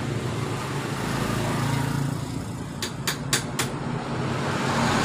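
Steady engine hum in the background, with four quick sharp clicks about three seconds in as the metal parts of a scooter's CVT driven pulley are handled and pulled apart.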